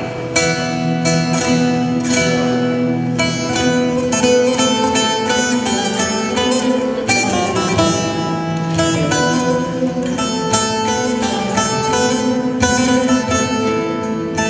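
A saz, a long-necked fretted lute, playing an instrumental passage: a quick run of plucked notes.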